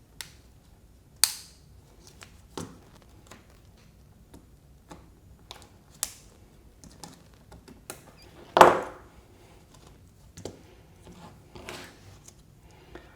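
Scattered clicks and light knocks of small electric toothbrush parts being handled and fitted by hand, with one louder knock about eight and a half seconds in.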